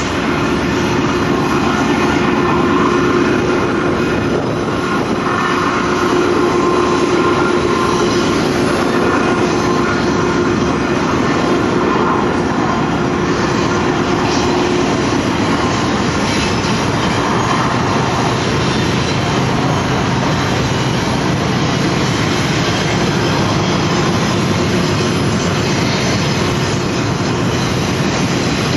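Diesel locomotives leading a double-stack intermodal freight train, running with a steady drone, then the container cars rolling past with continuous wheel-on-rail noise. The drone ends about halfway, leaving the rolling of the cars.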